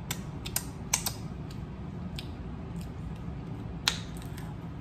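Crab leg shells cracking and snapping in the hands: a string of sharp, irregular clicks, the loudest about four seconds in, over a low steady hum.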